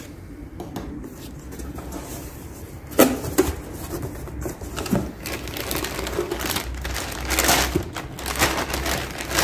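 A cardboard box being unpacked: a blade slitting the packing tape, the cardboard flaps folded open with a sharp knock about three seconds in, then a plastic bag rustling and crinkling as the parts are lifted out.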